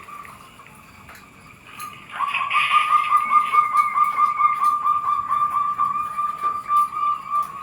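Zebra dove (perkutut) cooing: after a quiet start, one long call of rapid, evenly pulsed notes that smooths into a steadier tone near the end.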